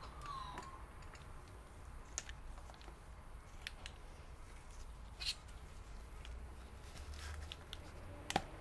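Faint handling of a laptop LCD panel by gloved hands as it is turned over on the bench: scattered light taps and rustles, with a sharper click about five seconds in and another near the end, over a low steady hum.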